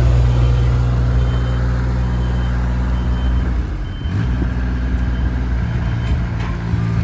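JCB 8014 mini excavator's diesel engine running steadily, wavering briefly about halfway through, with a faint short beep repeating about once a second.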